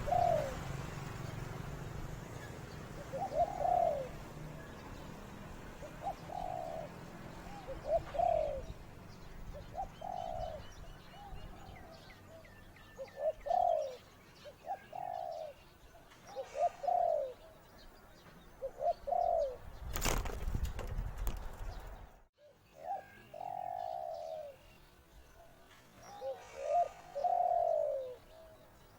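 A dove cooing repeatedly, a short phrase of falling notes every one to two seconds. There is a brief loud rustle about twenty seconds in, and faint chirps of small birds in the background.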